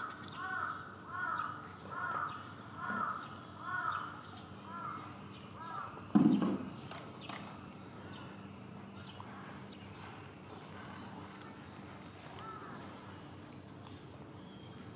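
A bird giving a run of harsh, crow-like calls, about eight in a row over the first five seconds. A single short, loud thud comes about six seconds in, and later a small bird chirps rapidly in high notes.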